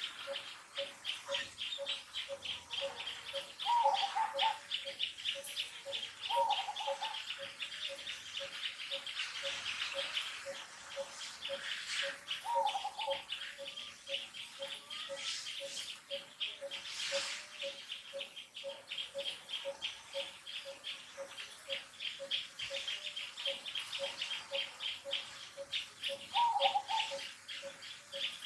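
Forest wildlife ambience. Rapid, steady pulsing chirps of insects run throughout, with a short note repeating evenly about twice a second. A few brief higher calls come four times.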